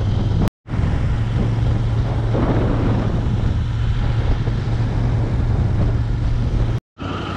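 Royal Enfield Interceptor 650's parallel-twin engine running steadily, a low drone under a rushing wind and road noise. The sound drops out completely twice, briefly, about half a second in and near the end.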